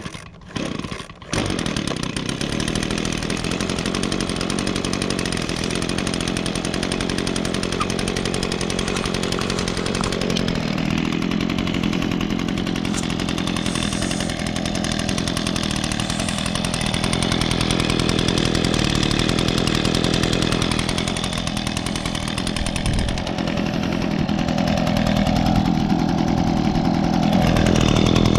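Echo PB265L backpack blower's 25.4 cc two-stroke engine sputters briefly, catches about a second in, then runs steadily.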